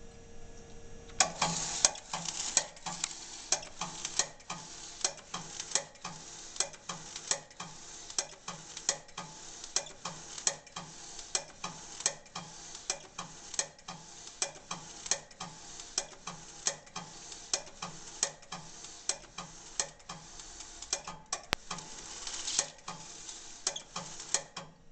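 HP 88781A nine-track reel-to-reel tape drive running while it writes a tar backup to tape: a steady rush from the tape transport, with sharp clicks about twice a second. It starts about a second in and stops just before the end.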